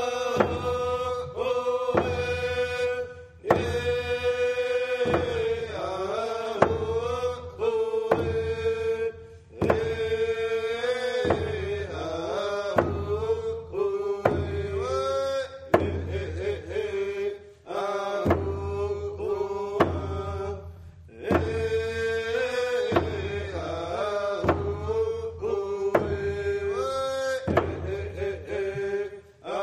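Traditional Tseshaht paddle song: men's voices chanting long held notes that step and bend in pitch, over a steady percussive beat.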